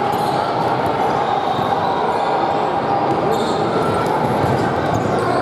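Basketball game sounds echoing in a gym: a ball bouncing on the court over a steady hum of crowd chatter, with a few short sharp sounds in between.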